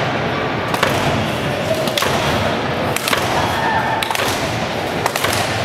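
Sharp thuds and slaps in a wrestling ring, roughly one a second, over a steady din of crowd noise in a large hall.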